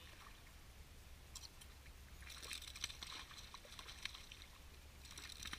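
A hooked small largemouth bass splashing and thrashing at the water's surface as it is reeled in to the bank. The splashing is faint, and busiest for a couple of seconds in the middle.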